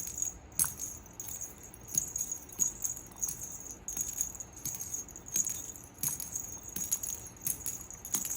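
Small bell jingling in irregular shakes, many times over.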